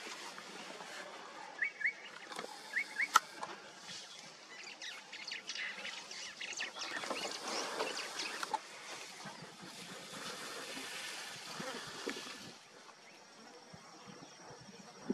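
Birds chirping in short rising calls, mostly in pairs, in the first few seconds, with a sharp click about three seconds in. Crackling, rustling noise builds through the middle, then fades.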